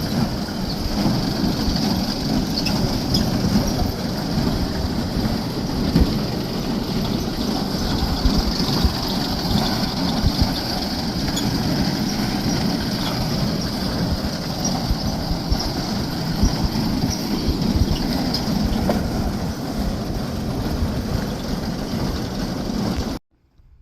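Hay-handling farm machinery running steadily with a continuous rattling clatter, cutting off abruptly near the end.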